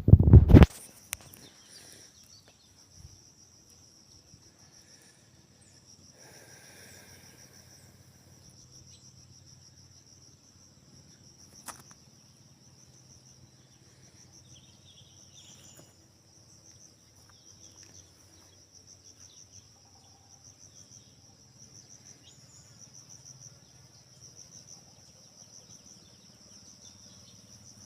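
A loud, brief thump right at the start, then a steady high-pitched insect chirring, a fast pulsing trill typical of crickets, holding on without a break.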